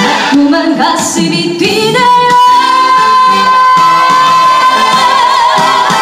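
Female trot singer singing live into a microphone over the song's band accompaniment; about two seconds in she holds one long closing note, with vibrato coming in near the end.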